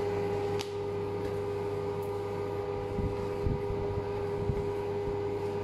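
A steady machine hum holding several fixed tones. Under it come faint soft knocks and scrapes of a spatula folding batter in a stainless steel bowl, mostly in the second half.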